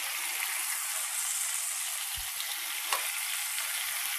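Chicken thighs sizzling in hot oil in a frying pan, a steady hiss with a light knock or two from the pan.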